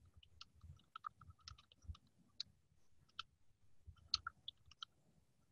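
Faint, irregular light clicks from someone working at a computer, scattered through, over a low hum of room noise.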